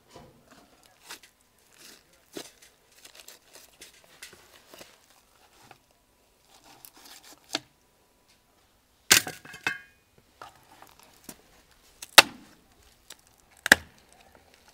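A raw lamb carcass being butchered: soft scattered cutting and handling noises from knife work on the meat. Then comes a few sharp cracks, the loudest about nine seconds in with a brief metallic ring, and two more near the end as shears snap through the rib bones.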